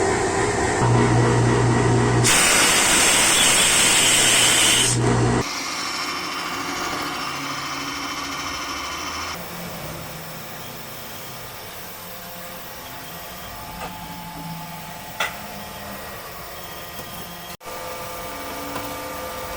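Workshop power tools running in a run of edited clips. A loud hissing stretch comes in the first few seconds, then after abrupt cuts a quieter steady machine hum with faint steady tones and an occasional click.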